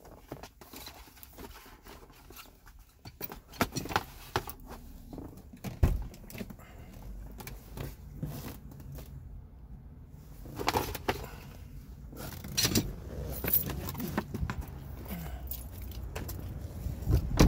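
Handling noise as boxed wiper blades in plastic packaging are picked up and carried: irregular rustling and clicking, with a dull thump about six seconds in and another near the end.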